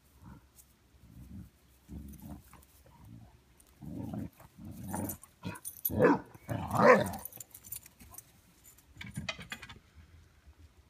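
Basset hounds growling in bursts as they play-fight, with two louder, longer growls about six and seven seconds in.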